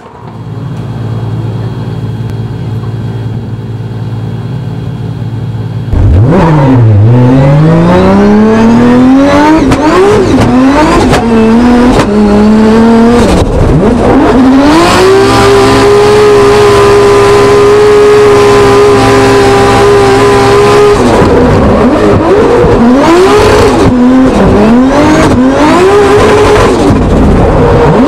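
Drift car engine idling steadily, then from about six seconds in revving hard and loud, rising and falling in pitch. It is held at steady high revs for several seconds, then revved up and down repeatedly as the car slides sideways.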